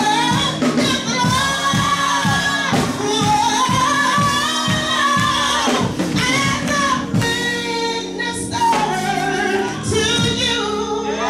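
Live gospel praise singing: a woman's lead voice, with long held, wavering notes, over backing singers, sustained low chords and a steady beat.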